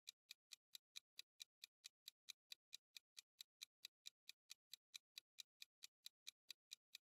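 Countdown timer sound effect: faint, even clock-like ticking, about five ticks a second.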